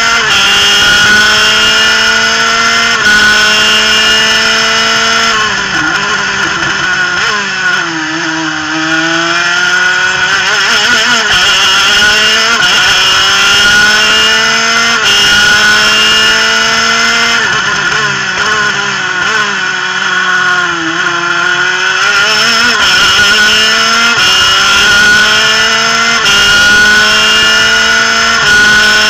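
Superkart's twin-cylinder two-stroke engine at high revs, heard onboard: the pitch climbs and drops at each upshift several times. Twice the revs fall away for a corner, about a quarter of the way in and again past the middle, then climb back through the gears.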